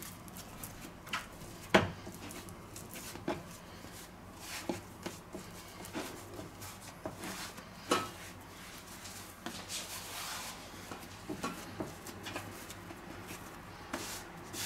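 Pizza dough being pressed and worked by hand on a floured wooden board: soft pats and rubbing with scattered light knocks, a sharper knock about two seconds in and another about eight seconds in.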